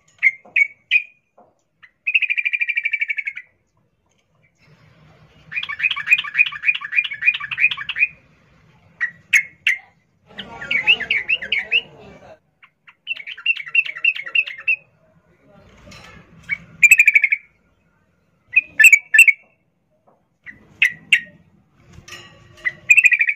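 Female yellow-vented bulbul calling in repeated bursts of rapid chattering trills, with short sharp chirps between them. These are the in-heat 'ngerol' calls a female gives to draw a male.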